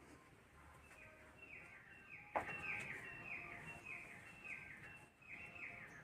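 A bird calling in a quick series of short falling chirps, about three a second, with a single sharp click about two and a half seconds in.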